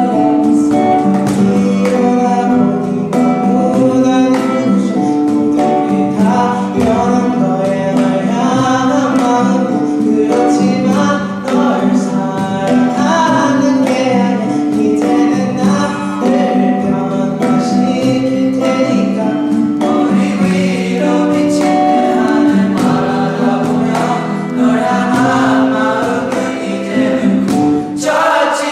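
A vocal group singing in chorus with instrumental accompaniment, the music steady and unbroken.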